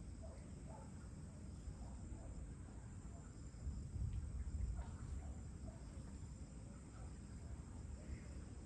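Evening insect chorus, crickets trilling steadily at a high pitch, with scattered faint chirps. A low rumble swells and fades about four seconds in.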